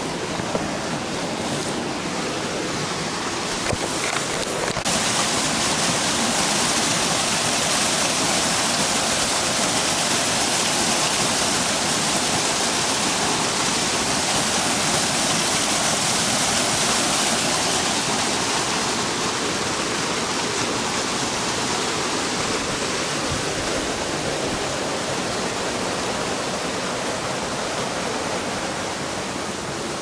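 Steady rushing of a waterfall close by, with a brief crinkling of a plastic bag in the first few seconds.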